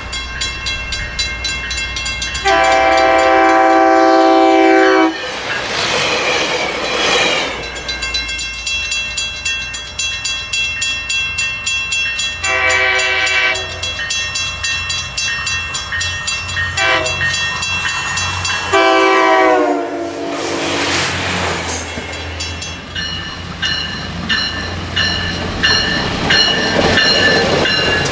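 Passenger train passing close by, sounding its multi-tone air horn in the long, long, short, long grade-crossing pattern. The wheels click steadily over the rail joints throughout.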